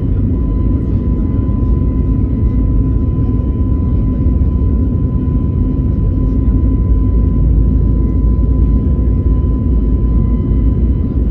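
Airbus A321neo's CFM LEAP-1A engines running, heard inside the cabin: a steady, deep rumble with a thin, steady tone above it.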